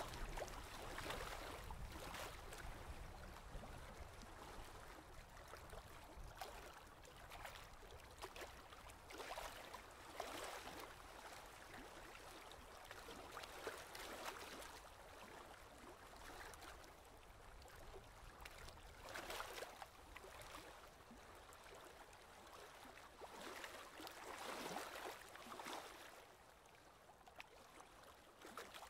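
Faint water splashing and trickling from kayak paddle strokes, the blades dipping and dripping every few seconds.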